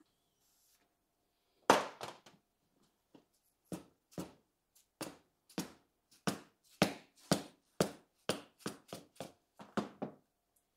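Repeated dull thumps of hands pushing and slapping on a riding-mower tire, about twenty in all at roughly two a second, the first the loudest: the tire is being worked onto its rim over a new inner tube.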